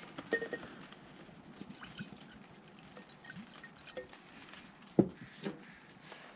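Sea Foam cleaner poured from its bottle into a glass jar, a quiet trickle of liquid filling the jar. A few small clicks near the start and two sharper knocks about five seconds in.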